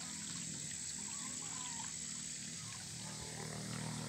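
Water trickling along a small irrigation ditch under a low steady hum, with a couple of faint short chirps about a second and a half in.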